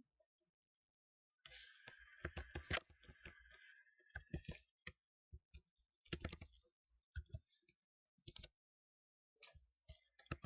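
Typing on a computer keyboard: bursts of rapid key clicks with short silent pauses between, the longest burst running a few seconds near the start.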